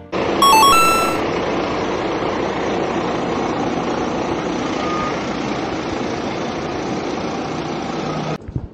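Fire engine running, a loud steady rush, with a short run of high electronic beeps about half a second in; the rush cuts off suddenly near the end.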